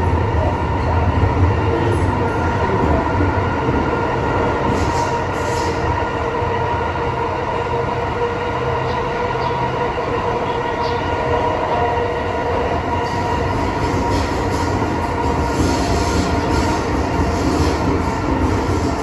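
MTR M-train electric multiple unit running through a tunnel at steady speed. A steady high whine of several fixed tones sits over the low rumble of wheels on rail, with light rail clicks in the second half.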